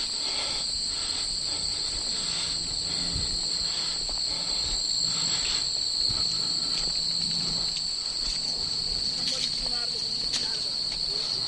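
Steady, high-pitched chorus of crickets and other insects, with faint rustling and a few light ticks.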